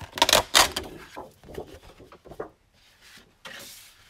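Sheets of 12x12 patterned craft paper being slid and handled on a stack. A loud paper rustle comes in the first second, then quieter rubbing and a short swish near the end.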